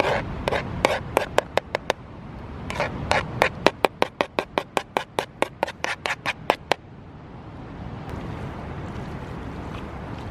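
A utensil scraping and stirring food in a cooking pan: a few strokes, then a quick even run of about five strokes a second that stops suddenly about seven seconds in.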